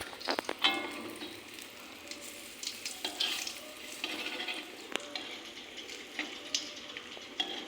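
Fish frying in hot oil in a pan, sizzling steadily, with a utensil knocking and scraping against the pan several times, the loudest knocks about half a second in.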